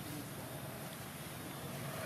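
Steady background rumble and hiss with no distinct event, the kind of low, even noise made by distant traffic or wind.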